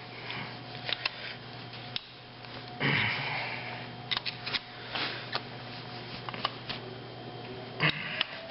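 Metal tools clicking, tapping and scraping against an engine block while a main bearing is pried out, with a short hiss about three seconds in. A steady low hum runs underneath.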